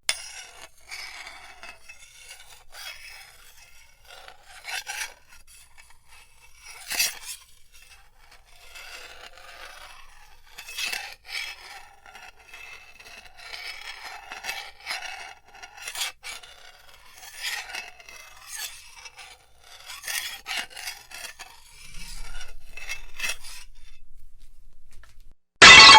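Friction sound effect: a surface rubbed and scraped in irregular rasping strokes, some louder than others. Just before the end, a sudden, much louder crash cuts in.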